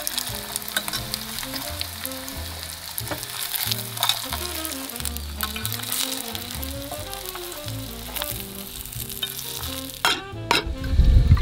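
Dumplings pan-frying in oil, a steady sizzle with fine crackling and popping. About ten seconds in there is a sharp click, followed by a loud, low rumble near the end.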